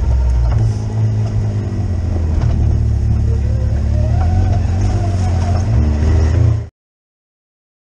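UTV engine running as the machine drives over rough ground, its pitch wandering up and down with the throttle and rising for a moment about four seconds in. The sound cuts off abruptly to total silence near the end.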